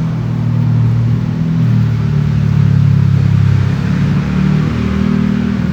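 A motor running with a loud, steady low hum, its pitch shifting slightly and swelling toward the middle.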